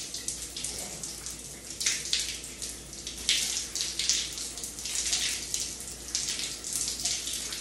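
Cold shower spray running steadily and splashing unevenly over a person's head.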